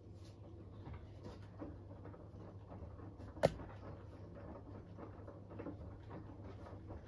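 Beko WTK104121W washing machine with its drum turning slowly: a steady low motor hum under soft, irregular thuds of wet laundry tumbling and water sloshing. One sharp knock stands out about three and a half seconds in.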